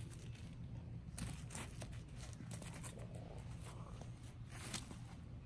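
Scottish terrier puppy nosing and pawing in dirt and dry leaves, making scattered crackling and crunching rustles, in a cluster about a second in and again near the end, over a steady low rumble.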